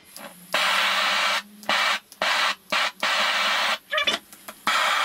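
A loud, even hiss like rushing air that cuts in and out abruptly about six times, then runs on steadily near the end.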